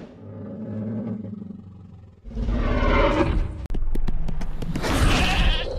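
Dinosaur (T. rex) roar sound effect: a low growl, then a loud roar about two seconds in, followed by a few sharp clicks and a second loud roar near the end.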